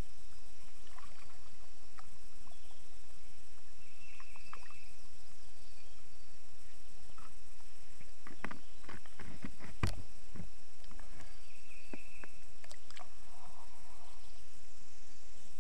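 A cluster of knocks and clicks from gear handled in a fishing kayak, a little past halfway, the loudest one near two-thirds of the way through, over a steady low rumble. Two short high chirps come near the start and again near the end.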